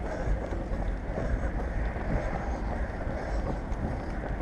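Wind buffeting a moving GoPro's microphone: a steady low rumble with a hiss over it.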